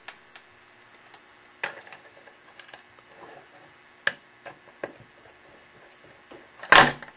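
Scattered light clicks and taps of a battery cover being fitted and a screw being set on a small electronics case, with one louder knock near the end.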